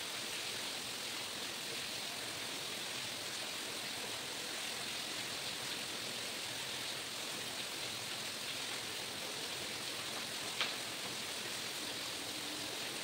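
Steady hiss with no distinct event, and one short faint click a little over ten seconds in.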